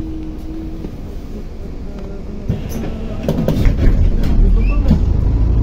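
Interior of a MAZ-105 articulated city bus driving at speed: a steady engine and road rumble with a steady hum that stops about a second in. From about three seconds in the low rumble grows louder, with a few short knocks and rattles.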